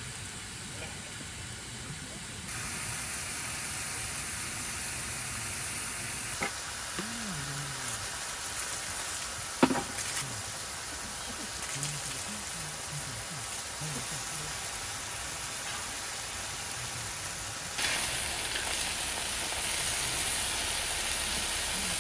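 Food sizzling steadily as it cooks, with a sharp click about ten seconds in and a few fainter knocks.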